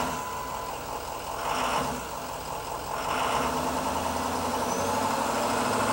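Ford 6.0L Power Stroke V8 turbo diesel in a 2008 Ford E350 van idling steadily just after start-up.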